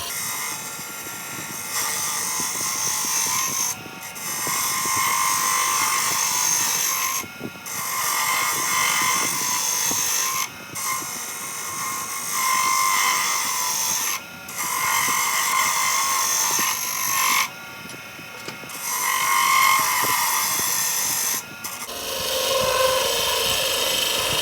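Wen benchtop wood lathe spinning a wooden blank while a chisel scrapes and cuts into it, in passes of about three to four seconds with brief breaks as the tool comes off the wood. Near the end the sound changes and takes on a lower tone.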